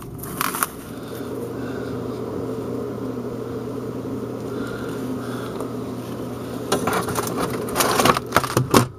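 A steady machine hum, with a cluster of sharp knocks and rattles near the end.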